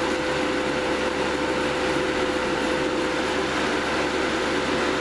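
Cooling fans forcing air through a GS-35B triode's anode cooler: a steady rush of air with one steady tone in it. The fans are running a bit over their rated voltage, on about 15.6 volts where they are rated for 13.8.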